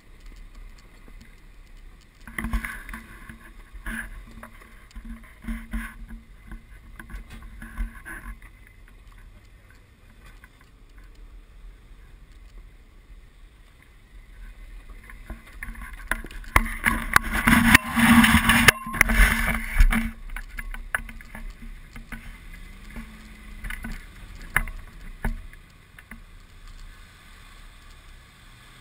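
Off-road 4x4's engine working at low speed on a rocky trail, with tyres crunching and knocking over loose rock and wind buffeting the side-mounted camera. The noise comes in stretches, the loudest one just past the middle.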